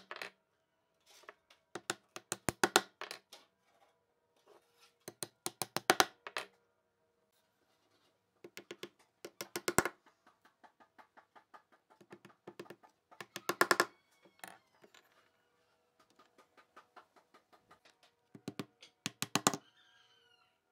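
A hammer driving nails into pine lattice slats. The blows come in short runs of quick strikes, several in a row, with pauses between the runs.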